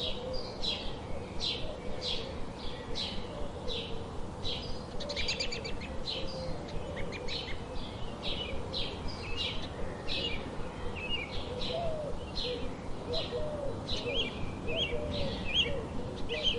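Several wild songbirds calling together: a steady series of sharp, high chips about twice a second, a brief buzzy trill about five seconds in, low warbling notes underneath, and quick squeaky notes near the end.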